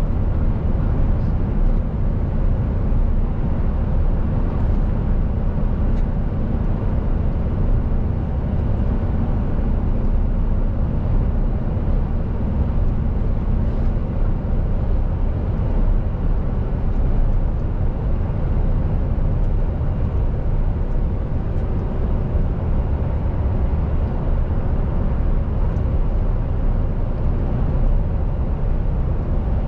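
Mercedes-Benz Actros lorry under way: a steady diesel engine drone mixed with road noise. A faint engine tone in it drops away about halfway through.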